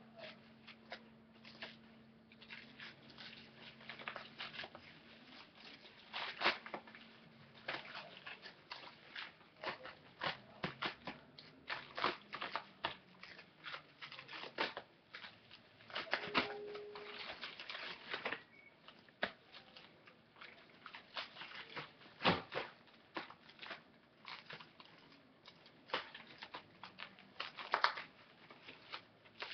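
Plastic cling wrap crinkling and crackling irregularly as it is pulled off the roll and wrapped around the head over wet hair.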